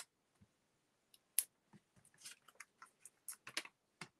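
Hands handling a small paper sentiment and foam adhesive dimensionals: faint scattered rustles and light clicks, the sharpest about a second and a half in.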